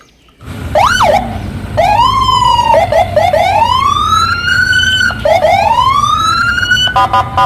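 Police car electronic siren sweeping up and down in wails, starting about half a second in, then switching near the end to a fast pulsing two-tone pattern, over a steady low rumble.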